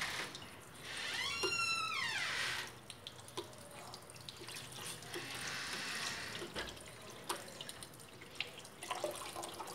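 Water dripping and trickling from an opened pipe fitting into a plastic bucket. The line is still leaking although its supply should have been shut. Small clicks of a pipe wrench on the fitting run through it, and a brief high squeak rising then falling comes about a second in.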